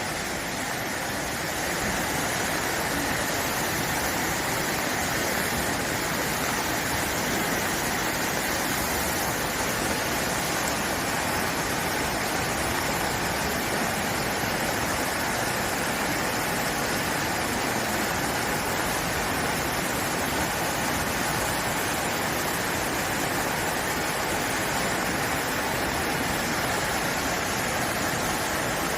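Mountain stream rushing steadily, running high after a sudden downpour.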